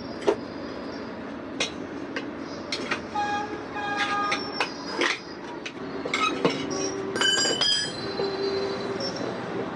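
Sharp metallic knocks and clinks, several ringing briefly, from metal tools being handled against a wheel and tyre during a puncture repair, over a steady background noise.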